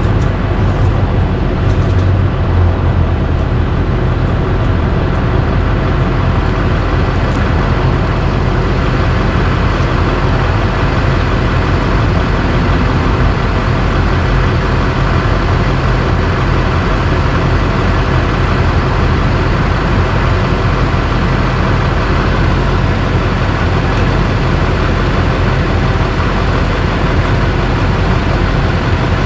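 Duramax V8 turbo-diesel of a 2007 Silverado 3500 pickup idling steadily with a deep, even rumble.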